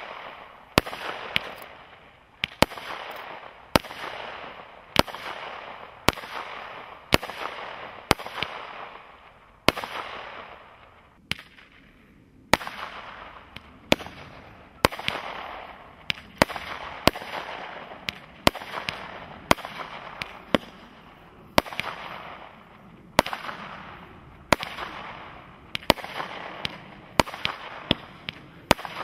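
Two Royal Party 16-shot category 2 firework cakes, Diamond and then Morning Light, firing in sequence. Sharp shot bangs come about once a second, each followed by a fading crackling hiss from the bursting effect, with a brief lull about eleven seconds in as one cake ends and the next begins.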